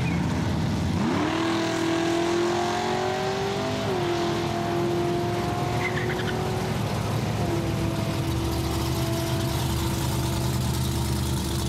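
1968 Oldsmobile V8 engines at the drag strip: one revs up sharply about a second in and climbs slowly, its pitch dropping at about four seconds as if shifting gear, then holds steady, over the low drone of another engine idling.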